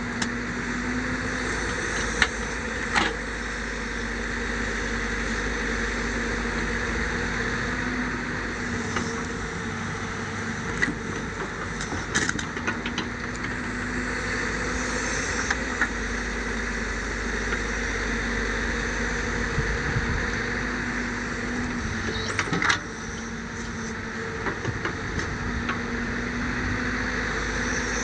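Excavator diesel engine running steadily, with a few sharp metallic knocks now and then.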